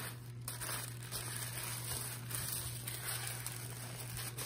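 Tissue paper rustling and crinkling as it is folded by hand around a small gauze jewellery pouch.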